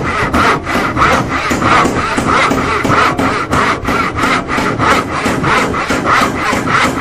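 Handsaw sawing with steady back-and-forth strokes, about two a second.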